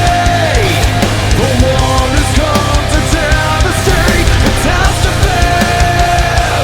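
Loud rock music: a distorted lead guitar bending and sliding between held notes over heavy bass and drums.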